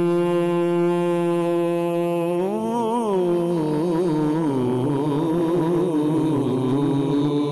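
Male naat reciter's unaccompanied voice holding a long, steady note, then from about two and a half seconds in winding through ornamented, rising and falling melismatic runs as he draws out a word of the naat.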